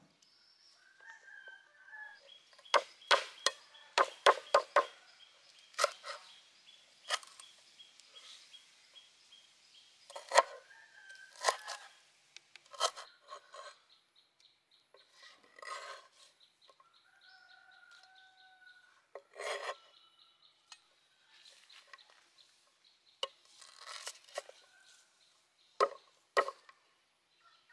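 A large knife chopping on a wooden cutting board, cutting through lemongrass stalks and red chillies: a quick run of chops a few seconds in, then single cuts spread through the rest. Birds call between the chops.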